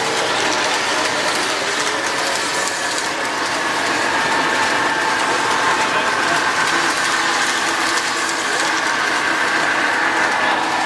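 Three-rail O gauge model trains running: a steady whir of locomotive motors and gearing with the clatter of wheels rolling over the track.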